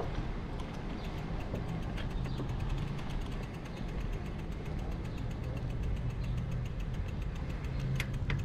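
Street traffic and road noise recorded from a moving bicycle: a steady, low vehicle-engine rumble, with a faint, fast, even ticking of about eight ticks a second.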